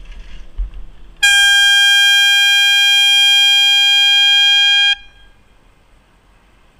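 A horn sounded in one long, loud warning blast of about four seconds on a single steady high pitch, starting about a second in and cutting off sharply, as a van turns right across the bicycle's path.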